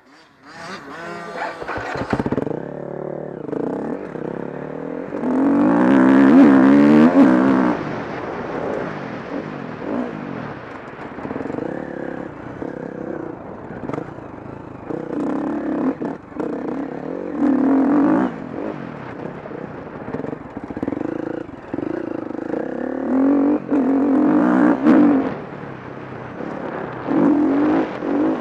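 KTM 350 SX-F motocross bike's single-cylinder four-stroke engine being ridden hard on a dirt track. It revs up and down in repeated surges, rising in pitch under throttle and dropping off between them, and is loudest about six seconds in.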